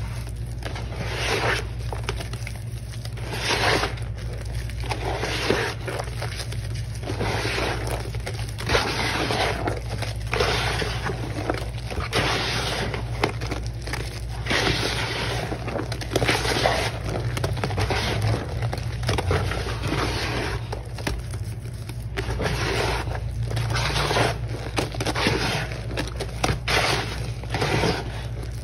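Hands squeezing and kneading wet, foamy sponge pieces in a thick paste of Ajax cleaning powder and blue Mr. Clean, giving a run of irregular wet squishes, each about half a second to a second long.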